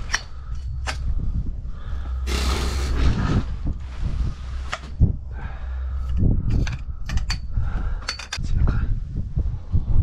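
A tent being taken down by hand: nylon fabric rustling, loudest in a burst about two and a half seconds in, with scattered light clicks and knocks from its fittings, over a low wind rumble on the microphone.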